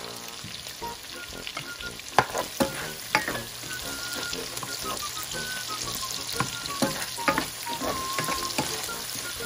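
Pork belly, onion and tomato sizzling in a nonstick frying pan while a plastic spatula stirs and scrapes through them. A few sharp clacks of the spatula against the pan come through the sizzle, the loudest about two seconds in.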